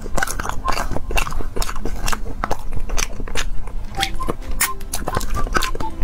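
Close-miked eating sounds of sticky steamed glutinous-rice cake with dates and beans: a rapid run of wet mouth clicks and smacks. A spoon scrapes the inside of the cup.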